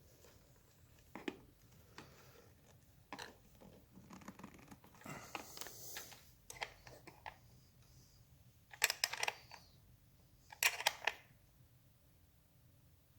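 A motorcycle battery being fitted and strapped down by hand. Scattered light clicks and a scraping, rustling patch, then two short bursts of sharp rattling clicks, about nine and eleven seconds in.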